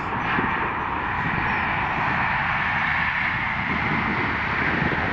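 Diesel train passing at speed on the main line, a steady rushing rumble of wheels on rail and engines.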